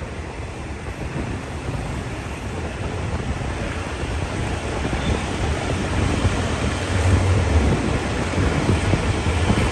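Passenger train running on the rails: a steady low rumble with a rushing noise over it, growing a little louder about seven seconds in.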